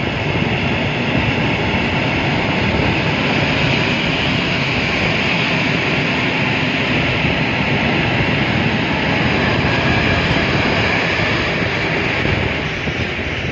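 Freight train of tank wagons rolling past: steady rumble and rattle of wheels on rail, easing a little near the end as the last wagons go by.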